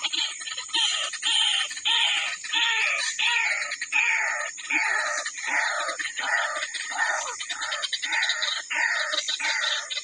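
White-breasted waterhen calls: a rapid, steady series of harsh calls, each falling in pitch, about two a second.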